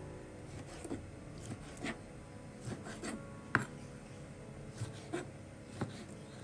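Kitchen knife slicing through a tomato onto a plastic cutting board: irregular soft knocks as the blade cuts through and meets the board, about one or two a second, the loudest about three and a half seconds in.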